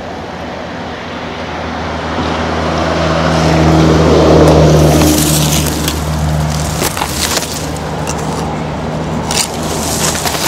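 A truck engine running close by, swelling to its loudest about four seconds in and then easing off. From about halfway, twigs and leaves crackle against the microphone as it is pushed through bushes.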